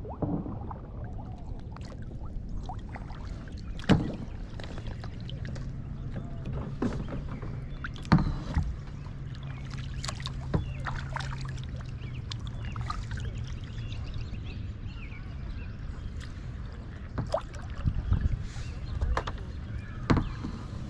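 Kayak paddling on calm water: paddle blades dipping and dripping, over a steady low rumble, with a few sharp knocks about 4 s and 8 s in and several more near the end.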